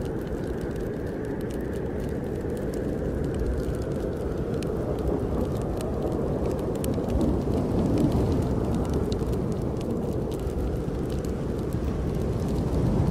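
Snowstorm wind rushing steadily with slow swells, mixed with a wood fire crackling in scattered small pops.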